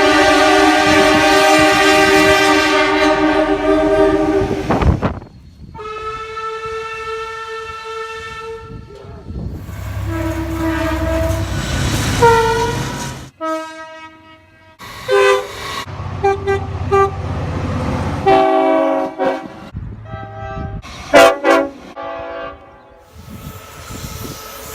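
Train horns, one clip after another: a long, loud multi-note chord blast, a second held blast, then a third over a low rumble that drops in pitch as the train passes, followed by several short toots.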